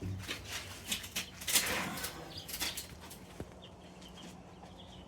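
Baby chicks in a brooder, with soft peeps and rustling and scratching in the bedding; the loudest rustle comes about a second and a half in.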